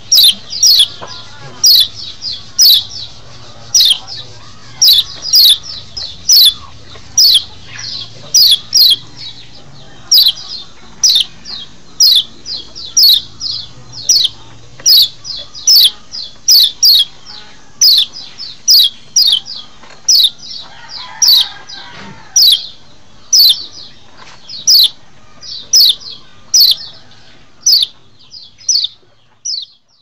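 Kecial (white-eye) calling: rapid, high-pitched notes that sweep sharply downward, often in quick pairs or threes, repeated over and over. The calls stop near the end.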